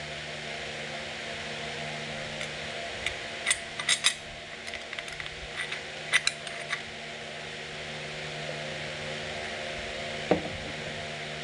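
Light metallic clicks and clinks as a steel clutch plate is set into a forklift transmission's clutch drum, in scattered taps between about two and seven seconds in, over a steady hum.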